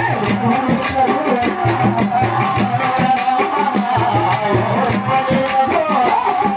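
Loud folk music for a kolatam stick dance: drums and a wavering melody over a fast, even clicking beat.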